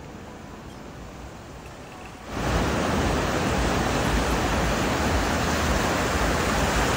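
Ocean surf breaking and washing around the shallows: a moderate rush at first, then, a little over two seconds in, it turns suddenly much louder into a steady, full roar of surf.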